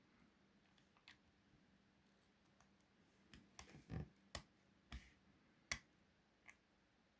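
Faint, scattered metallic clicks and taps of lock-picking tools, a tension wrench and a short hook, being handled at a Euro cylinder lock. One click comes about a second in, and most come in an uneven run between about three and six and a half seconds in.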